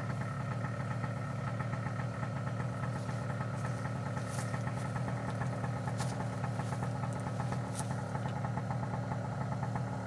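Small engine idling steadily at an even, unchanging speed, with a few faint clicks over it.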